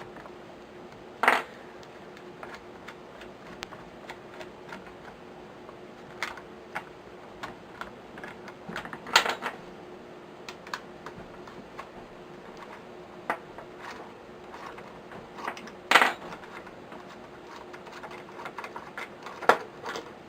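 Small metal clicks and taps of an Allen key and screws being worked out of a rifle's bottom plate, with three louder knocks of metal parts being handled or set down, over a faint steady hum.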